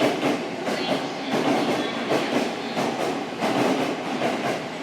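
A train running on the rails, a steady rumble with wheels clacking over the rail joints at irregular intervals.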